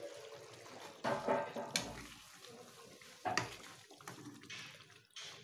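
Yogurt chicken curry bubbling in an open pan, with a metal spoon clicking and scraping against the pan a few times.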